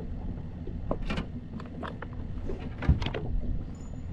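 Clunks and knocks on a fishing boat's deck as someone moves about it, the loudest a thump about three seconds in, over a steady low rumble of wind and water on the hull.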